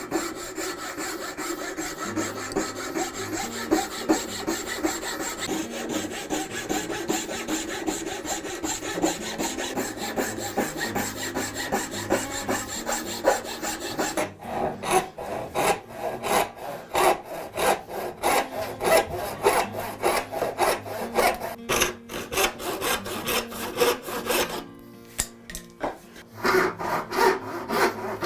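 A hand tool cutting hardwood by hand, stroke after stroke. For about the first half the strokes come quickly and run together; from about halfway they are slower, separate back-and-forth strokes, with a brief pause a few seconds before the end.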